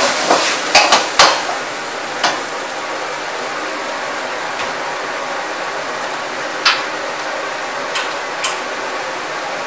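A metal spatula and ladle clanking against a steel wok in a quick burst of stir-frying, with one more clank about two seconds in. After that a steady rush of the gas wok burner with frying food, broken by a few single clinks near the end.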